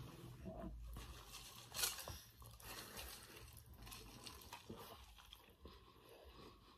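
Faint mouth sounds of a person biting into and chewing a large Arby's meat sandwich, with one louder, sharp sound about two seconds in.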